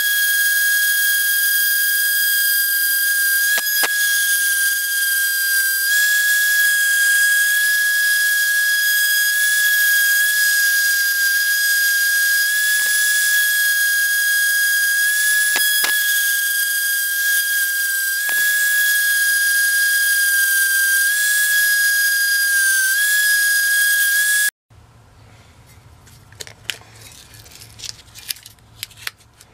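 Electric random orbital sander running with a steady high-pitched whine and hiss as it sands a wooden knife handle. About 25 seconds in it cuts off abruptly, leaving faint handling clicks and rustles.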